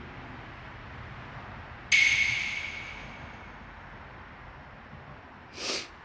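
A bright bell-like ding about two seconds in, fading away over about a second, then a short whoosh near the end, both edited-in sound effects over a steady background hiss.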